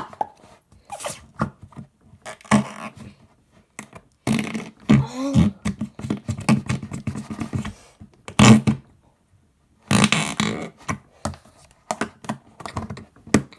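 Slime being squished and worked by hand, in irregular bursts of wet squelching and air-pocket pops.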